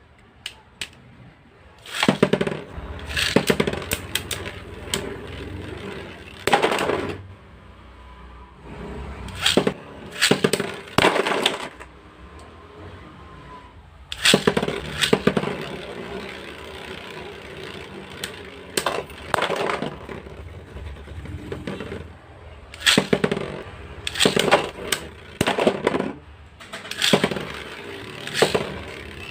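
Two LEGO-built spinning tops clattering and scraping as they spin in a stadium, with repeated sharp plastic clacks as they collide. The sound starts about two seconds in.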